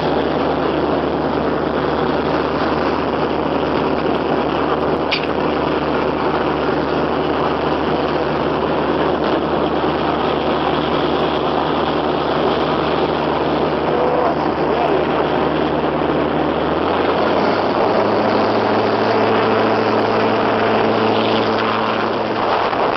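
Small outboard boat motor running steadily, its pitch stepping up about 17 seconds in as the engine speeds up.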